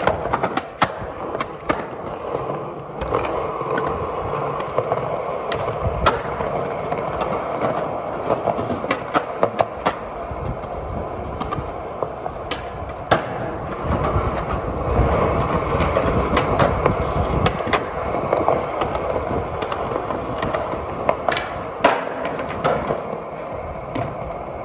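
Skateboard wheels rolling on concrete with a steady rumble, broken throughout by many sharp clacks of the board striking the pavement and ledges.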